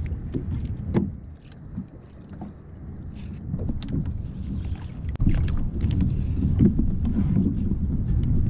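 Wind buffeting the microphone and water slapping against a kayak hull, a steady low rumble with scattered small clicks and knocks. It grows louder about five seconds in.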